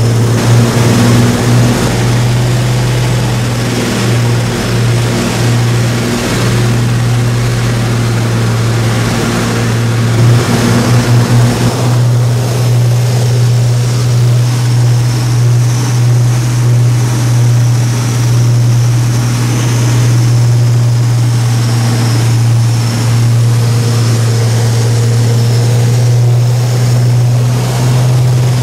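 The twin Merlin V12 engines of a de Havilland Mosquito droning steadily in cruise, heard from inside the cockpit with airflow rushing over the canopy. A brief pulsing throb comes through about ten seconds in.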